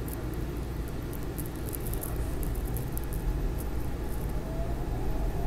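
SEPTA Market-Frankford Line subway-elevated train starting to pull out of a station, heard from inside the car: a low rumble that grows louder from about two seconds in, with a faint whine that rises slightly near the end as it gathers speed.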